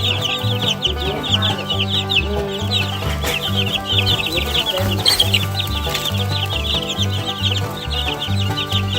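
A brood of two-week-old Barred Rock chicks peeping nonstop, many short, quick chirps overlapping. Under them runs background music with a stepping plucked bass line.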